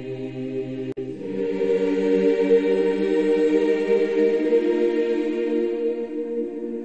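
Background choral music: voices holding long sustained chords, with a brief dropout about a second in, after which fuller chords swell.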